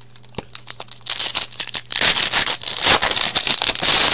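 Foil wrapper of a Black Diamond hockey card pack being torn open and crinkled by hand. A few light ticks come first, then a dense, loud crackle starting about a second in, loudest in the last two seconds.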